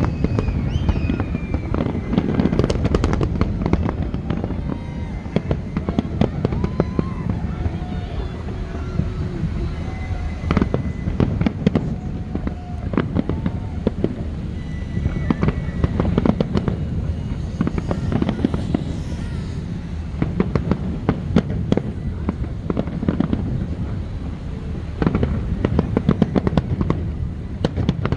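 Fireworks display going off without pause: sharp bangs and crackles over a continuous low rumble.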